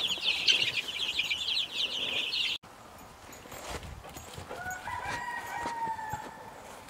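A brood of baby chicks peeping, many rapid high chirps overlapping, which stop abruptly about two and a half seconds in. After that it is quieter, and a single faint rooster crow, about a second and a half long, comes around the fifth second.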